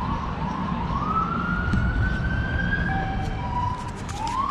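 Emergency-vehicle siren wailing: its pitch climbs slowly for about two seconds, drops back, and starts climbing again near the end, over a steady low rumble.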